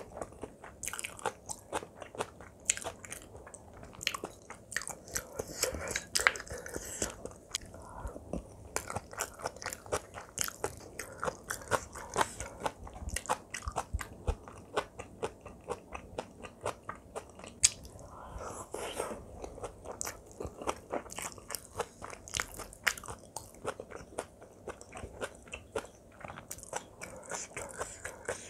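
Close-up sound of a person chewing a mouthful of kimchi fried rice with Spam, mouth closed: a steady run of small wet clicks and smacks, several a second.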